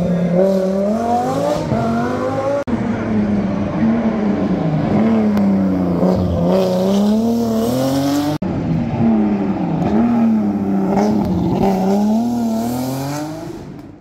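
Race car engines running and revving at a rally start line, the engine note rising and falling in pitch, in three short clips joined by abrupt cuts, fading out at the end.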